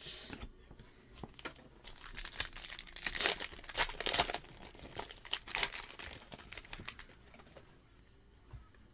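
A 2019 Panini Certified football foil card pack being torn open and its wrapper crinkled by hand. There is a run of crackling rustles, loudest in the middle, then quieter handling near the end.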